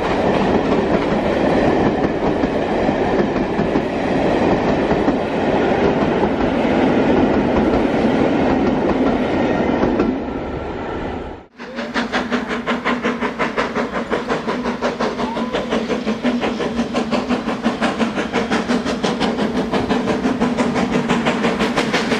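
Great Western steam locomotive and its train passing close by with a dense rumble and rattle of wheels. The sound cuts out briefly about halfway through, then a GWR steam locomotive hauling carriages works hard with a fast, even beat of exhaust chuffs.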